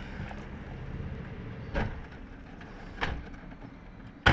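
Doors and bodies of a small van knocking as people scramble aboard: two dull thumps, then a sharp, loud door slam near the end, over a low steady rumble.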